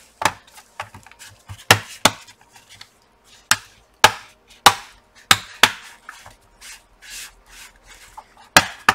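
Plastic bottom cover of an Acer TravelMate P215 laptop being pressed into place, its clips snapping shut in about a dozen sharp, irregular clicks.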